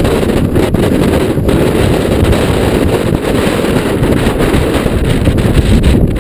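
Strong wind buffeting the camera microphone during a mountain bike ride: a loud, steady low rush with no pauses.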